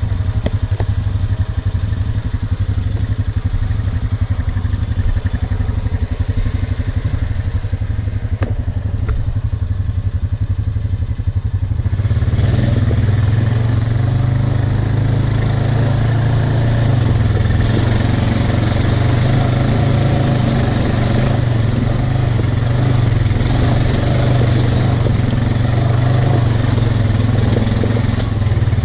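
Off-road vehicle engine running at low, steady revs, then about twelve seconds in it revs up under heavier load and stays louder and rougher as it climbs the trail.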